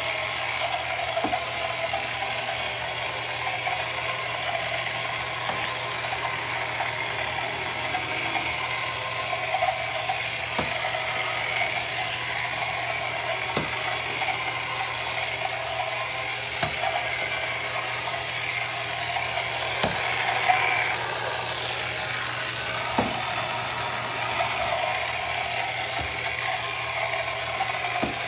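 1968 Ideal Motorific Boaterific toy outboard motor running steadily, its small electric motor whirring as the boat moves through bathtub water. Occasional faint clicks come every few seconds.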